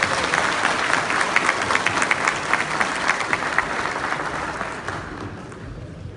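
Audience applauding, with many sharp individual claps, dying away over the last couple of seconds.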